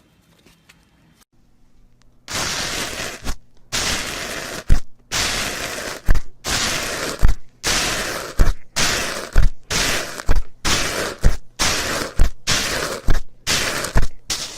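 Crunchy material being crushed in repeated strokes, roughly one a second from about two seconds in. Each stroke is a crisp crackling crunch ending in a short dull knock.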